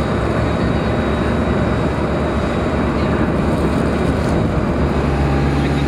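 Jet aircraft noise: a steady, loud rushing with a faint high whine held constant. A low hum joins near the end.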